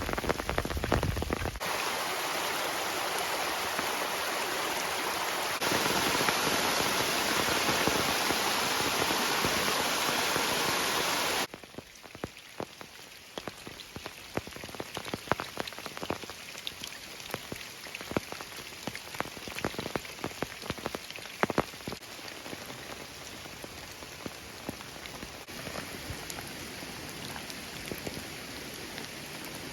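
Rain falling, with the abrupt changes of edited clips: a loud, dense, even rush for the first eleven seconds or so, then quieter rain with many separate drops striking.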